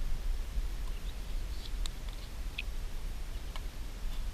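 A few faint light clicks and ticks from handling a frying pan, a spoon and a plastic bottle, over a steady low rumble.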